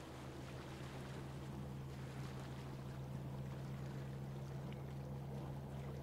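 Lake water lapping and splashing gently, with a steady low hum underneath that grows slightly louder over the first couple of seconds.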